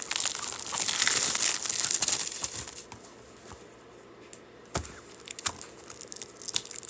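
Plastic shrink wrap being torn and crinkled off a Blu-ray case, loud for the first two and a half seconds, then quieter with a couple of sharp clicks, and more crinkling near the end.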